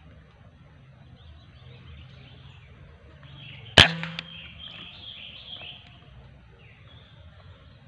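A single shot from a PCP air rifle nearly four seconds in: one sharp crack with a brief ring after it.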